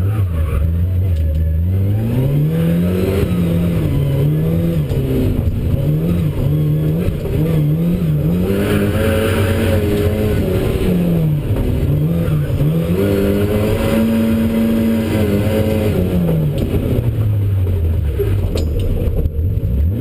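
Lada rally car's four-cylinder engine heard from inside the stripped, caged cabin, revving hard and dropping again over and over through gear changes and lifts. Near the end the revs fall away steadily and settle to a low, even note.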